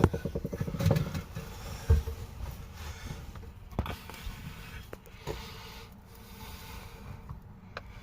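A quick rattling run of clicks, then a few separate sharp knocks and taps of hard parts being handled.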